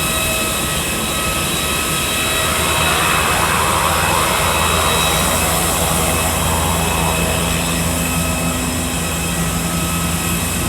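Jet airliner's engines running, a steady high whine over a low rumble that swells a little in the middle.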